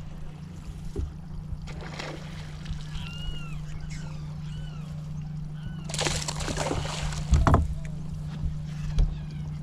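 Repeated short, arched bird chirps over a steady low hum, on a boat on open water. About six seconds in, a louder splashy rush of water noise lasts about a second and a half.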